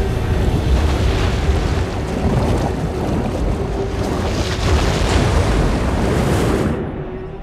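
A huge flood wave surging through a mountain valley: a dense roar of rushing, crashing water over a heavy low rumble. Near the end the hissing top of the roar cuts off sharply, leaving a lower rumble.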